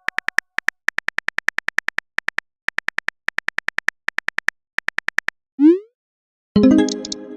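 Texting-app keyboard typing sound effect: a fast run of short, same-pitched tapping clicks in several bursts. It is followed by a short upward pop as the message is sent, and about a second later a chiming notification ding that rings and fades.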